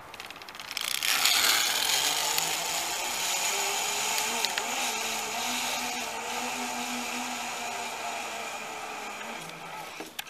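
Zipline trolley pulleys rolling along a steel wire cable: a steady whirring hum that starts about a second in, slowly fades as the rider travels away, and stops near the end.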